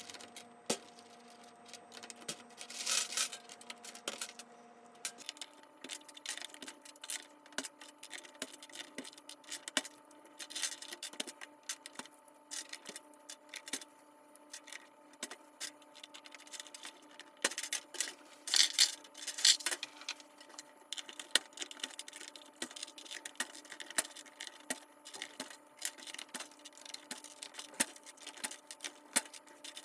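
Small hard plastic clicks and clatters from the keycaps and case of an HHKB Professional 2 keyboard being handled during cleaning, with a few short stretches of hissy rubbing. A faint steady hum sits underneath and shifts pitch about five seconds in.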